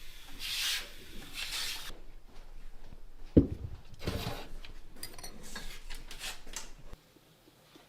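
Rubbing and scraping strokes on a ceramic ocarina being worked by hand, with one sharp knock about three and a half seconds in; the sound stops about a second before the end.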